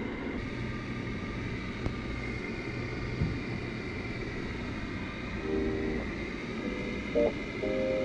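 A steady low mechanical hum with a faint high whine, and a single light knock about three seconds in. Background music with clear pitched notes comes in about five and a half seconds in.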